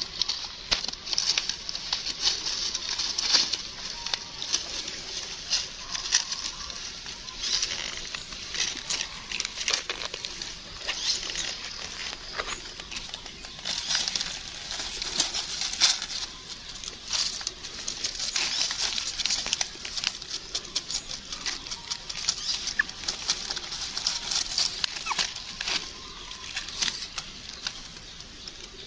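Busy, irregular patter of small clicks and rustles, as of small animals scrambling and pawing through scattered things.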